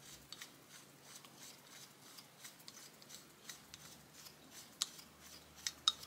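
Vintage Van Dial patent adjustable spanner worked by hand: its knurled adjusting screw is turned and the movable jaw slides in and out, giving a run of faint metallic clicks and scrapes, with a few sharper clicks near the end.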